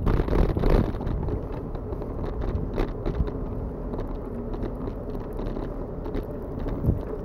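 A bicycle rolling over asphalt, heard through a handlebar-mounted camera: low wind rumble on the microphone with frequent small clicks and crackles.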